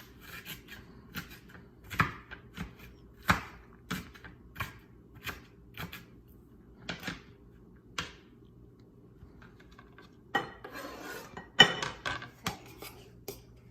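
Kitchen knife chopping on a cutting board: single sharp knocks about a second apart, then a stretch of scraping and clatter near the end as the chopped food is pushed around the board.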